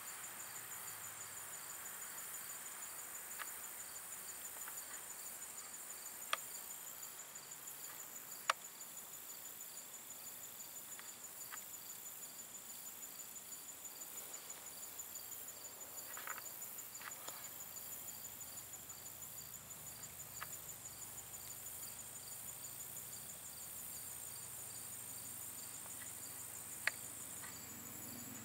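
Insects trilling steadily with a high, fast, even pulsing, with a few sharp clicks scattered through.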